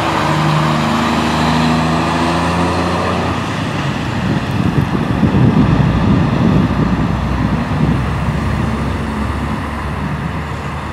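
Heavy diesel lorries driving past close by: a steady engine note for about three seconds, then a deeper engine and wheel rumble, loudest around the middle of the passage, that eases off as the lorries move away.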